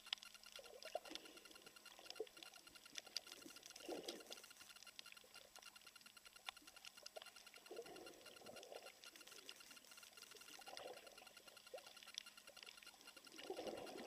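Faint underwater ambience on a coral reef: scattered small clicks and crackles, with a muffled rush every three to four seconds.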